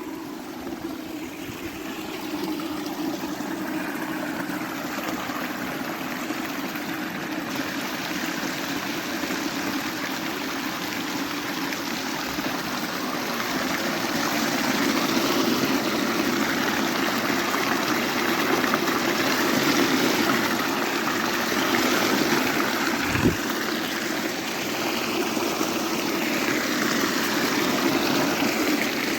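Water of a river or stream flowing and splashing steadily, growing a little louder over the first half. One short dull thump about three-quarters of the way through.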